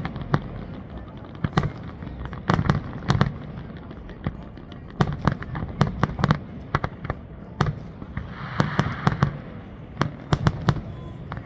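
Fireworks display: aerial shells bursting in a rapid, irregular run of bangs, with a stretch of hiss about eight seconds in.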